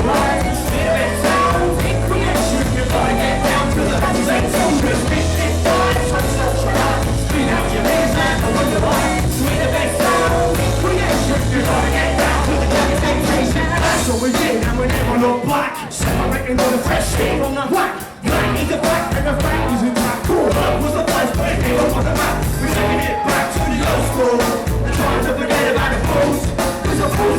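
Live band performing a hip hop tribute song, with vocals over the band. The bass drops out for a few seconds about halfway through, then comes back in.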